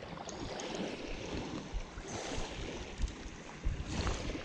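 Small waves lapping at a pebbly shoreline, a steady washing sound, with a few short clicks and knocks about three to four seconds in.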